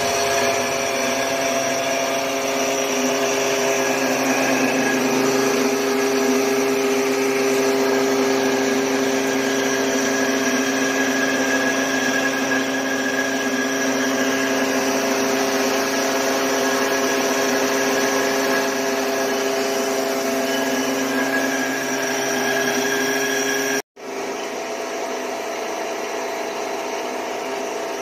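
Mini rice mill machine running steadily while milling paddy: a constant machine hum with several steady tones over a rushing of grain. It cuts out for an instant near the end and resumes a little quieter.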